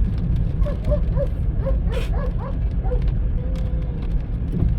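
Steady low road rumble of a moving car, with a quick run of short high squeaks or whines about a second in and one longer held whine near the end.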